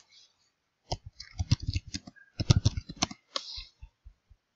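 Typing on a computer keyboard: a quick run of key clicks starting about a second in and lasting nearly three seconds, with a few stray keystrokes after.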